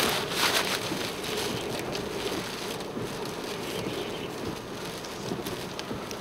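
Storm-force wind rushing and buffeting the microphone, loudest in a gust at the start and then easing a little.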